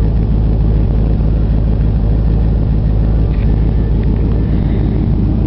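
Steady low idle of the 1965 Cadillac limousine's rebuilt 429 V8 on glass-pack mufflers, heard from inside the rear cabin.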